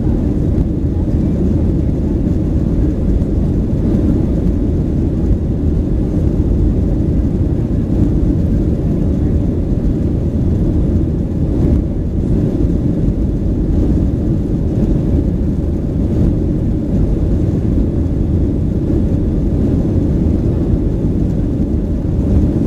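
Steady low roar inside the passenger cabin of a Boeing 737-900 in flight: its CFM56-7B turbofans and the airflow over the fuselage, unbroken and without distinct events.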